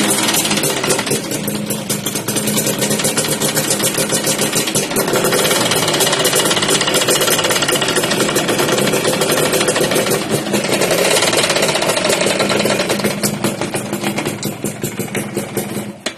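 Motorcycle engine running with a loud, fast grinding clatter, like a flour mill grinding, somewhat louder in the middle. The clatter is the sign of a damaged gearbox: the first-gear plate is worn out, so the bike will not move in first gear.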